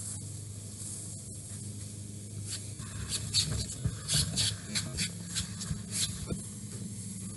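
Garden hose spraying, heard as a run of short hissing bursts in the middle, over a steady low hum.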